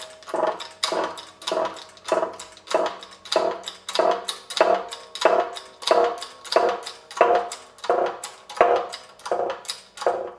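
Hydraulic bottle jack of a homemade press being pumped by hand in a steady rhythm, about one and a half strokes a second. Each stroke is a sharp metallic clack with a brief pitched squeak as the jack presses a new wheel bearing into a brake drum.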